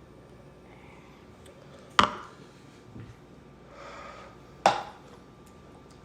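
Two sharp knocks on a wooden surface, about two and a half seconds apart, with soft breathy puffs between them.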